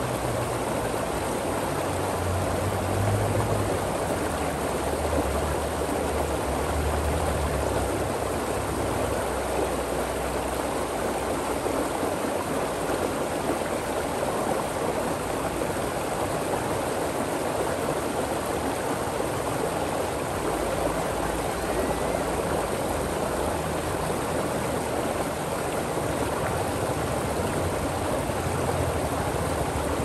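Stream water rushing and gurgling over rocks, a steady, even flow. A low drone sits underneath in the first several seconds and again near the end.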